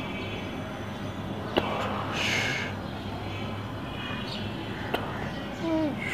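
Steady low hum of background room noise, broken by two sharp taps, one about a second and a half in and one about five seconds in. A short hiss falls between them, and a brief falling call comes near the end.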